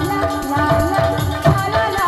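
Live kirtan folk music: a two-headed barrel drum struck with quick hand strokes, its low notes bending downward, over a shimmer of small cymbals or rattles and a held melody line.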